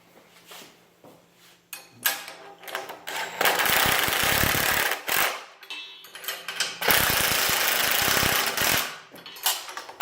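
Power impact driver hammering in two bursts of about two seconds each, with shorter bursts before and near the end, driving the bolts that hold the load cells to their mounting brackets.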